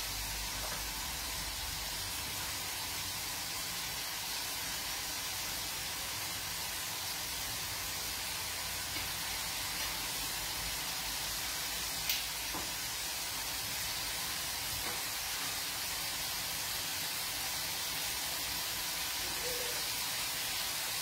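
A pan of prawns frying on a gas hob, sizzling with a steady even hiss. A single faint click about twelve seconds in.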